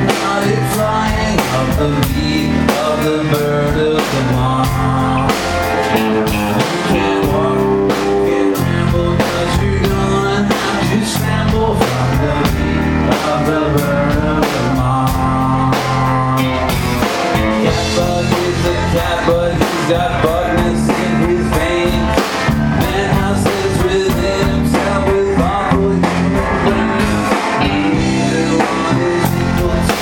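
A rock band playing live at a steady loud level: drum kit beating out a regular rhythm under guitar and synthesizer keyboard.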